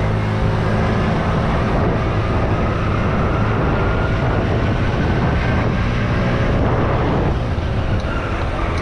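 Small delivery motorbike's engine running steadily while riding, mixed with a strong, even rush of wind over the camera microphone.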